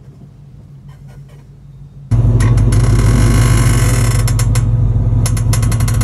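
S550 Ford Mustang's rear suspension creaking and clicking as the car moves, over low road hum; the owners traced the noise to the rear spring isolators. About two seconds in it jumps much louder into a dense, rapid run of creaks and clicks.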